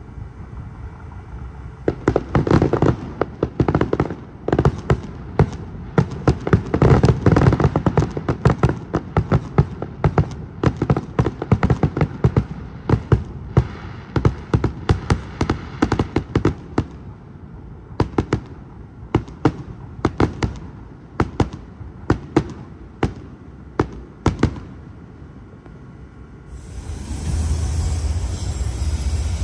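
Fireworks going off in a long run of sharp cracks and pops, packed densely at first, then spaced out and stopping. Near the end a train's steady rumble comes in.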